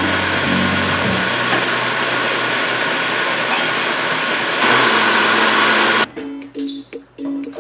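Countertop blender running at speed, pureeing a batch of roasted butternut squash soup: a steady whirring that gets louder just before five seconds in and stops abruptly about a second and a half before the end, after which light ukulele music plays.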